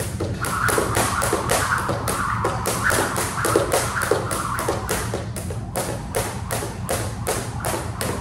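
Jump rope skipping on a hard tiled floor: a steady rhythm of rope slaps and landing feet, about three strikes a second.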